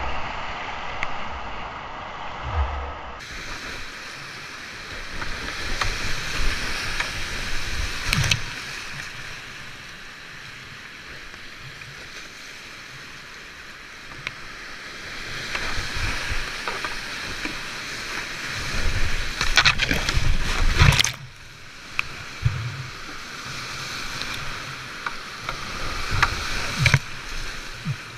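Whitewater rushing and splashing around a kayak running rapids, heard close up from a camera on the boat, with sharp splashes now and then. The rush swells loudest about three quarters of the way through, then drops suddenly.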